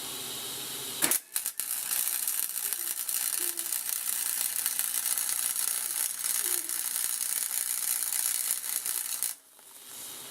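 Electric welding arc crackling steadily as a bead is laid to weld a bushing into a steel swing arm. It starts about a second in and cuts off suddenly about nine seconds in.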